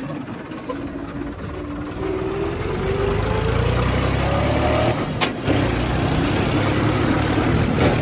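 Tractor diesel engine running and picking up speed, growing louder over the first few seconds, with a thin whistle from the exhaust silencer rising in pitch as it goes. A sharp click comes about five seconds in.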